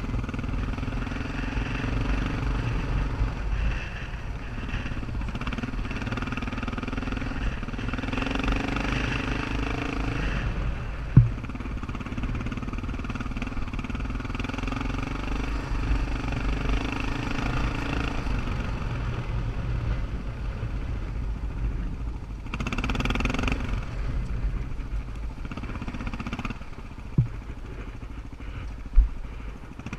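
Motorcycle engine running steadily while riding over a rough dirt trail, with a few sharp knocks about eleven seconds in and twice near the end. A brief louder rush of noise comes shortly before the knocks near the end.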